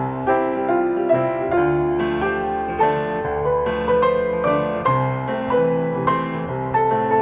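Background piano music, gentle notes struck about twice a second over held lower notes.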